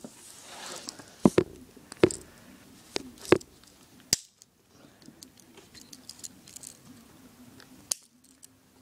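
Handling noises: a pocket knife and other small hard objects being picked up and set down, giving several sharp clicks and knocks in the first half and one more near the end.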